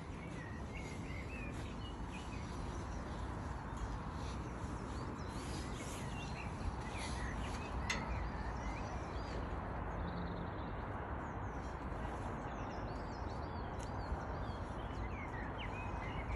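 Steady outdoor background noise with small birds chirping now and then, and a quick run of repeated high chirps near the end.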